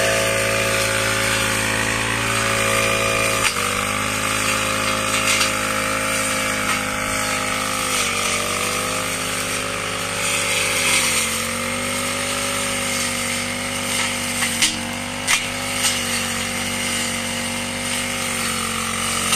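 Four-stroke backpack brush cutter running at high speed, its engine note sagging briefly a few times as it cuts through grass, with a couple of sharp clicks about three-quarters of the way in.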